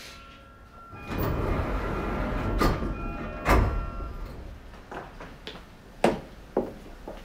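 Sotetsu 11000 series commuter train at a station stop: a rush of air and the passenger doors sliding open, followed by several sharp knocks.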